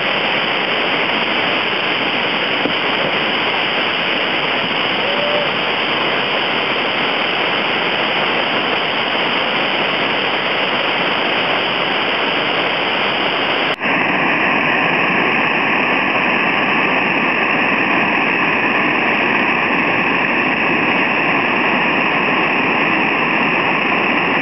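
Loud, steady rush of whitewater pouring over river falls and a dam spillway. It breaks off for an instant about halfway through and carries on with a slightly different tone.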